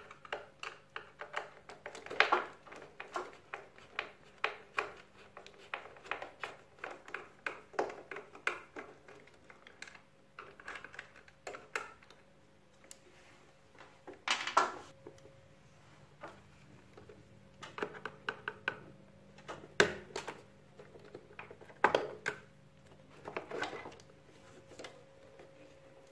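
Small irregular clicks and light knocks from a screwdriver working a screw and plastic parts being handled, as the control board is taken out of an air conditioner's indoor unit, with a handful of louder knocks spread through.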